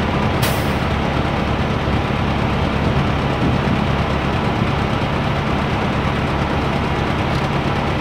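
Large engine idling steadily with a low, even hum, with one short sharp hiss about half a second in.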